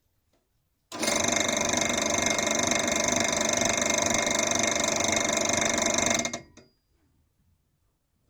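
Benchtop pillar drill switched on: its motor and spindle start abruptly and run with a steady, loud mechanical whine for about five seconds, then it is switched off and quickly runs down.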